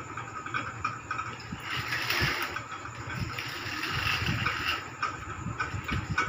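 Baby walker's small plastic wheels rolling and rattling over a tiled floor, with an uneven rumble and light knocks as it moves.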